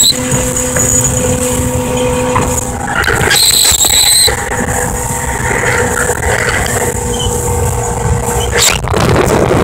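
115 hp Evinrude two-stroke outboard motor running steadily with the boat under way, with rushing wind and water. A brief high squeal about three and a half seconds in.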